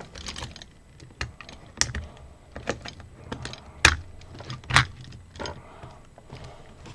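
LEGO plastic parts clicking and knocking as hands press and fit pieces of a small LEGO robot together: irregular light clicks with a few sharper snaps.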